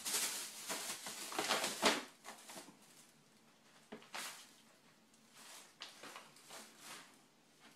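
Thin plastic grocery bags rustling and crinkling as a cat noses and digs through them. The rustling is busiest in the first two seconds, then comes in short scattered bursts.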